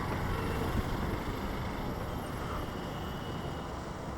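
A motorcycle being ridden in city traffic: a steady rumble of engine, road and traffic noise.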